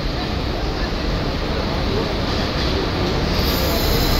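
Locomotive-hauled passenger train rolling into a station platform, a steady rumble slowly growing louder as it approaches, with a high-pitched hiss of wheel squeal coming in near the end.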